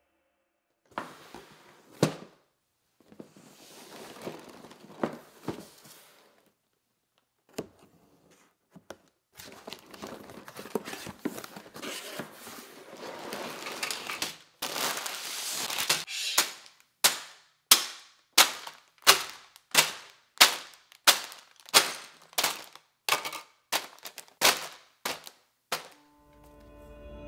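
Plastic bags of Lego pieces crinkling as they are handled and pulled from the box, then a fast run of sharp thuds, about two a second, as the bags of bricks are set down on the table one after another.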